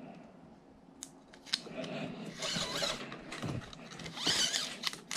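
A steel bicycle brake cable being fed through the plastic housing of a kayak's steering handle. There are a few sharp clicks about a second in, then two stretches of scratchy rubbing of wire against plastic.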